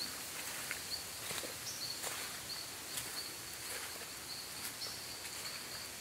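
Insects trilling on one steady high note in short stretches that break off and start again, over soft outdoor background noise with faint footsteps on wet ground.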